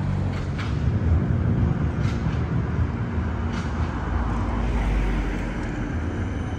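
Siemens Combino city trams running on street track: a steady low rumble, with a few faint clicks.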